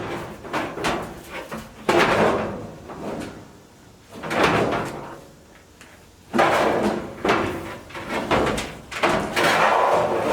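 The steel drum of a Duet Sport clothes dryer being lifted out of its cabinet, sliding and bumping against the sheet-metal housing in several loud bursts, about four in all.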